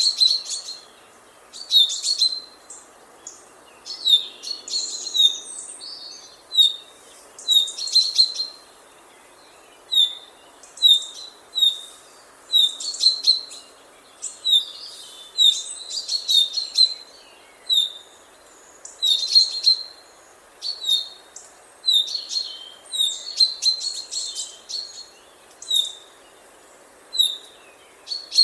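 Chaffinch calling. Short, sharp, high notes repeat about once a second, with busier clusters of notes every few seconds.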